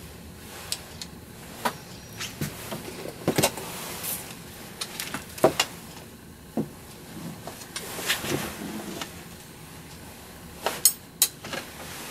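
Handling sounds at a reloading press: scattered clicks, taps and rustles at irregular intervals as a primed, powder-charged cartridge case is pressed into paraffin wax to seal its mouth.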